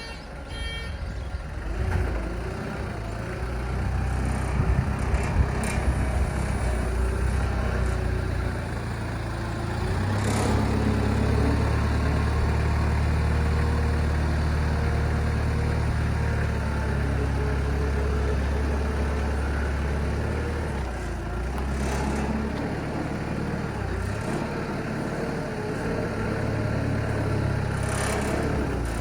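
Diesel engine of a Toyota 4FD20 2-ton forklift running steadily. It comes up in level about ten seconds in and settles back around twenty-one seconds. A few short knocks and clicks sound over it.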